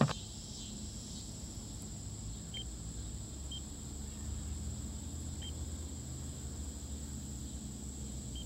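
Steady high-pitched insect chorus with a low rumble underneath, broken by three or four very short high chirps.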